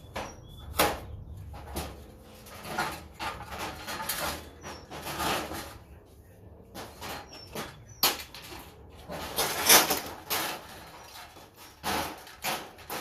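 Irregular clanks, knocks and scraping of a fluorescent light fixture's metal parts being handled and pried apart by hand.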